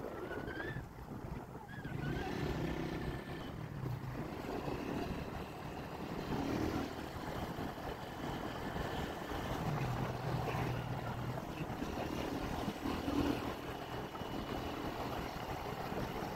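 Road vehicle in motion: steady engine hum and road noise, the low hum swelling and easing now and then.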